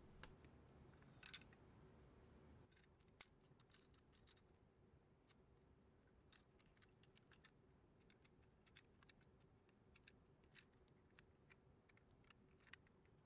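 Faint, scattered clicks and taps of needle-nose pliers on the pressed-steel tabs of a 1970s Tonka cement mixer's chassis as they are bent open to free the axles, with a small cluster of clicks about a second in and near silence between the later ones.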